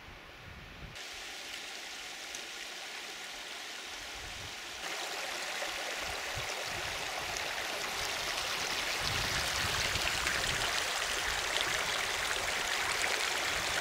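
Shallow alpine meltwater stream rushing over stones: a steady rush of water that steps louder about a second in and again about five seconds in.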